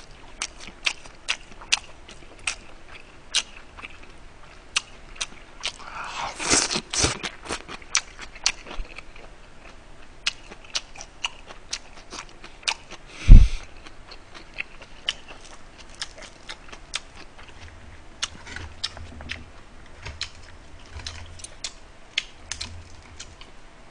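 Close-miked chewing of a mouthful of boiled pork, kimchi and rice, with many short wet mouth clicks and smacks. There is a single loud thump about halfway through.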